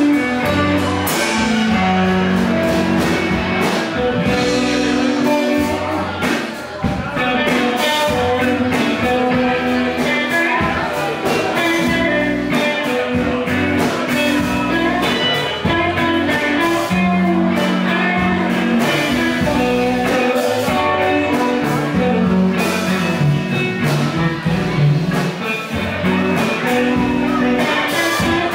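Live blues band playing: two electric guitars, electric bass and drum kit, with dense guitar lines over a steady beat.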